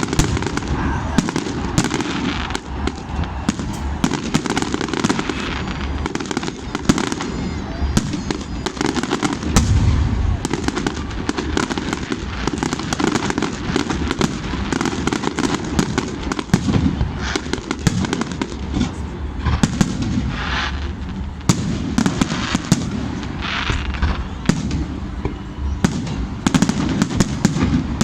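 Fireworks going off continuously: a dense, irregular crackle of sharp pops and bangs with a heavier boom about ten seconds in, over the murmur of an outdoor crowd.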